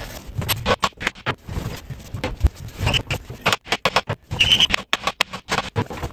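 Irregular knocks, clicks and scrapes from working a seized Austin-Healey Sprite engine free by hand, with a brief squeak about four and a half seconds in.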